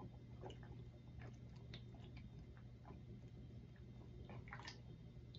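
Faint swallowing and small wet mouth clicks as someone drinks from a bottle, over a low steady hum; very quiet overall.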